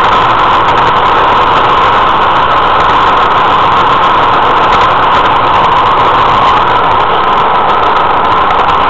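Steady, loud whirring rumble of a model train running on its track: the locomotive's small electric motor and gearing, with the wheels rolling over the rails, picked up close by a camera riding on the train.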